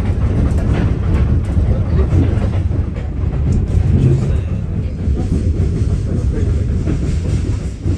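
Heritage railway train running: a steady low rumble with faint clicks of the wheels over the rail joints.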